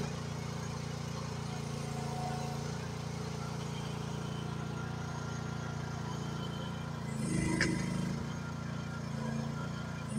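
Mini excavator's small engine running steadily as it digs. The engine grows louder for about a second just past seven seconds in, with a sharp click.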